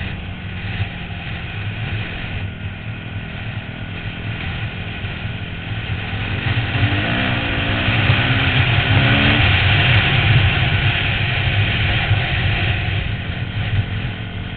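250cc dirt bike engine running at speed, heard from the rider's helmet camera. It gets louder about halfway through and eases again near the end.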